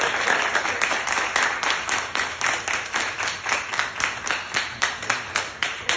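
A group of people clapping. The dense applause soon settles into steady clapping in unison at about four claps a second.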